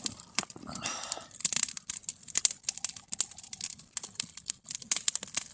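Wood campfire crackling, with many sharp, irregular snaps.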